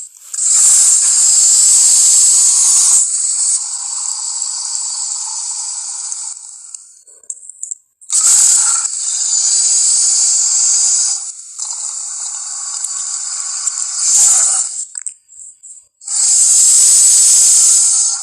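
Film monster sound effect: a harsh, hissing, rasping creature cry that comes in four loud bursts, with quieter rasping between them.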